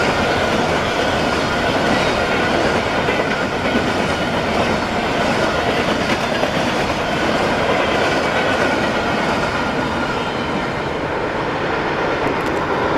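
Grain train's freight cars rolling along the rails, wheels clattering steadily over the track, with a thin high tone running through it.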